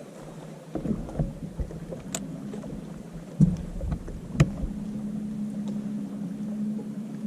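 Sounds from a small fishing boat on the water: two sharp knocks against the boat about three and a half and four and a half seconds in, over a steady low hum that grows stronger after the second knock.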